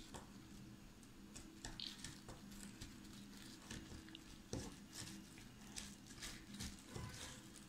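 Faint crinkling of plastic wrap and irregular small taps and rustles as fingers press a biscuit-crumb cheesecake base into a plastic-lined steel cup, over a faint steady hum.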